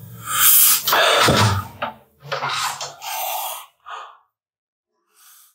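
A man's heavy sighs and breaths close to the microphone, several loud exhales one after another, then fading to a faint one near the end: the sound of a man upset and despondent.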